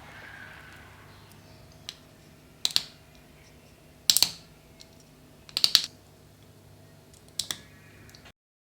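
Sharp, hard plastic clicks from a 1/144 plastic model kit's parts being handled and fitted together, in four or five short clusters spread over several seconds. The sound cuts off suddenly near the end.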